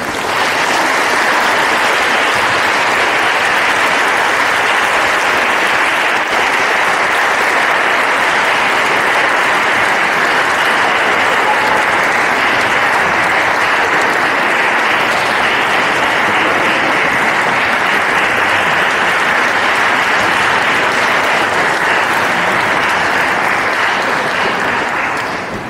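Audience applauding, steady and sustained, dying away near the end.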